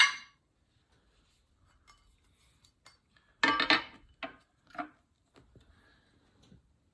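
Metal weight plates clinking as 5-pound plates are handled and fitted onto an adjustable dumbbell handle: one clatter about three and a half seconds in, then two lighter clinks.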